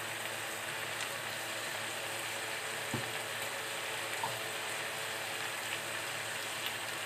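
Cut green beans, potatoes, onion and tomato frying in oil in a kadhai, a steady sizzle, with a single light click about three seconds in.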